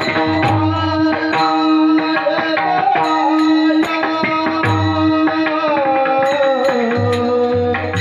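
Devotional song: a man singing a gliding melody over a tabla-like drum beat and a steady drone.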